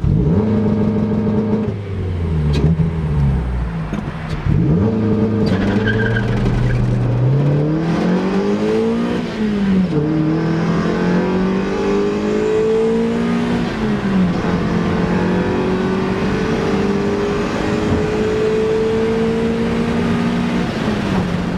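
Mazda Miata NB's four-cylinder engine at full throttle, heard from inside the cabin on the stock exhaust. It is held at a steady launch-control rev limit, then the car launches and the engine pulls up through the gears. The note climbs between shifts and drops sharply at two upshifts.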